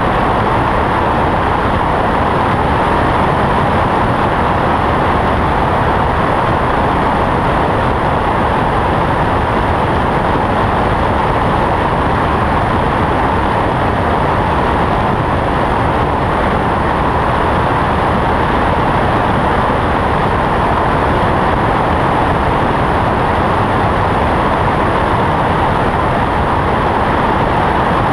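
Cessna 172 in cruise flight: the propeller engine and rushing airflow give one loud, steady noise that does not change.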